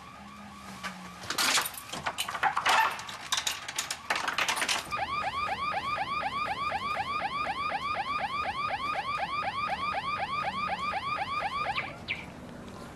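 Car alarm sounding as a fast run of repeated falling whoops, about seven a second, which cuts off near the end. Between about one and five seconds in, a loud burst of crashing and banging covers it.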